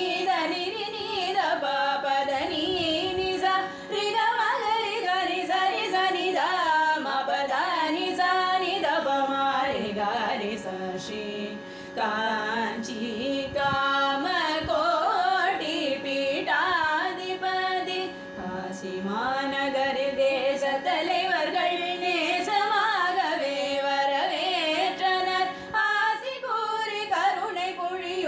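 Devotional bhajan singing, a voice carrying a gliding, ornamented melody over a steady drone.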